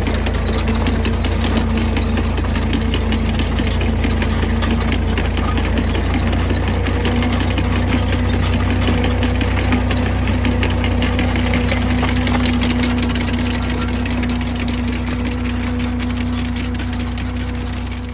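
Tractor engine running steadily while pulling a bed-forming seed planter, with a constant fast rattle and clatter from the planter's metal works; the engine note rises slightly about seven seconds in and the sound fades near the end.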